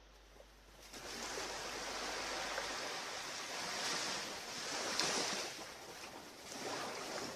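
Surf washing onto a beach: a hissing wash that starts about a second in and swells and eases several times.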